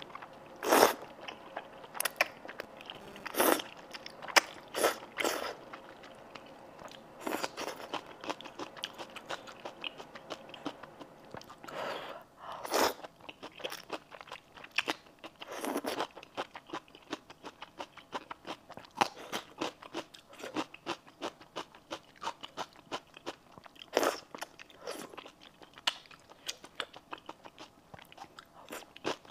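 Close-up mouth sounds of eating thick stir-fried rice noodles in a spicy sauce: steady wet chewing clicks, with several louder slurps of noodles spread through.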